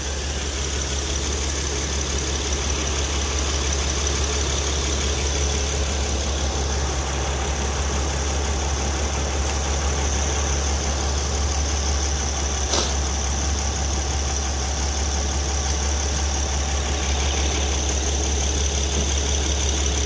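Honda Odyssey engine idling steadily with the air conditioning on, while the A/C system is charged with R-134a refrigerant. One light click near the middle.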